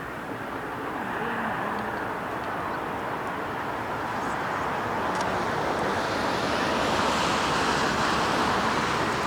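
Rushing whoosh of a huge flock of Baikal teal wingbeats passing overhead, a steady surf-like roar that swells and grows brighter about six seconds in.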